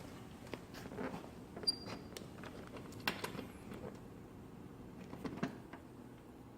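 Small scattered clicks and taps of screws being put back in and tightened by hand to fasten a motorcycle seat, with a louder pair of clicks near the middle and another toward the end.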